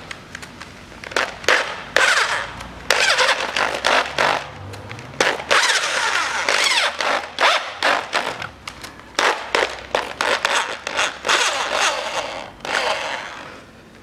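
Power drill driving an M8×1.25 tap into the engine's cylinder head, cutting a thread. It runs in many short stop-start bursts, with a scraping metal-cutting noise and a motor whine rising and falling, and stops near the end.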